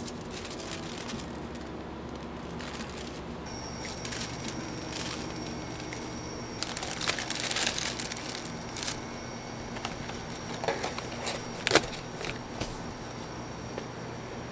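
Clear plastic bag crinkling as a slice of cake is handled and packed into a paper takeout box, strongest a little past the middle, with scattered small clicks and one sharp tap near the end. A steady low hum runs underneath.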